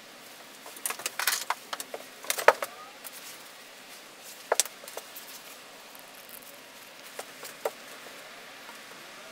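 Light clicks and clatter of small hard objects being handled: a quick cluster about a second in with the sharpest knock at about two and a half seconds, then a single click in the middle and two more near the end, over a steady background hiss.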